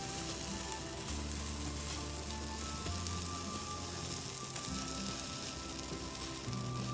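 Cedar and Japanese cypress bark burning in an incineration basket, crackling and hissing steadily, with soft background music of slow held notes.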